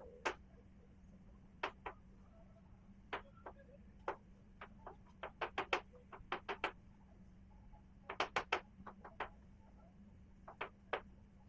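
Light, irregular clicks and taps from small tools working on a PS5 motherboard during short-circuit tracing, some coming in quick runs of three or four, over a faint steady hum.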